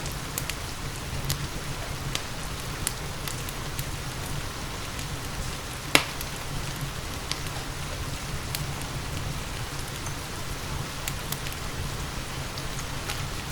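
Steady rain with a wood fire crackling: a constant rain hiss and low rumble under scattered sharp pops at irregular intervals, the loudest pop about six seconds in.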